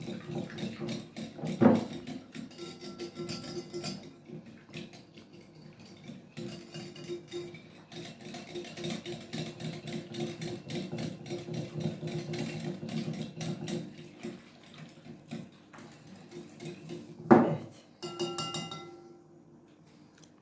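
A metal utensil stirring in a glass bowl, ticking and clinking against the glass in quick succession as yeast is mixed into lukewarm water to activate it. There are two louder knocks, one about two seconds in and one near the end.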